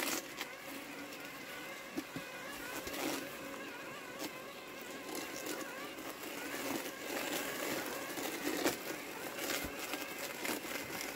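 Landxcape battery robotic lawn mower running as it drives through wet weeds: a faint, wavering electric motor whine over a steady hiss, with scattered brief clicks and rustles.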